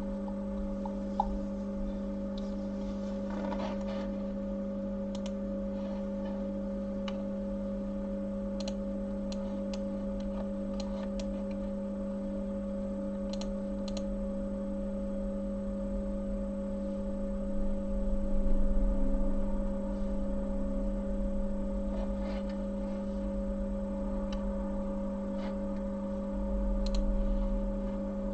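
A steady electrical hum with faint, scattered light clicks and taps, and two short swells of low rumble about two-thirds of the way in and near the end.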